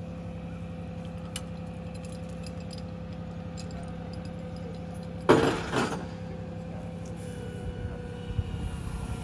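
Crane truck's engine idling steadily, with a brief loud clatter about five seconds in.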